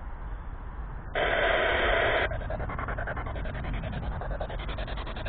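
Spirit box (ghost box) radio scanner sweeping through stations. About a second in there is a loud burst of static lasting about a second, then a fast, choppy static as it steps rapidly from station to station.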